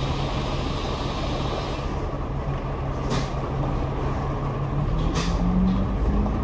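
Double-decker bus running, heard from the upper deck, with a steady low engine hum. There are two short air hisses about three and five seconds in, and the engine pitch rises near the end as the bus pulls away.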